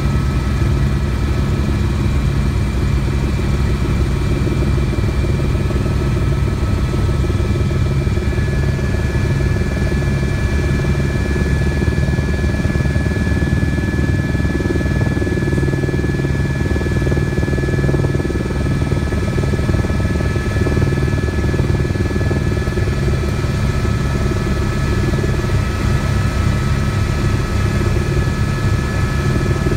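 Helicopter in flight heard from inside the cabin: a steady, loud low rotor beat with a constant high turbine whine.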